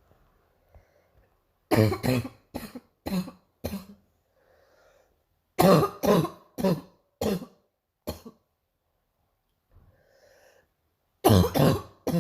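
A girl's harsh, barking morning cough, coming in three fits of four to six coughs each: about two seconds in, about five and a half seconds in, and near the end. Faint breaths come between the fits.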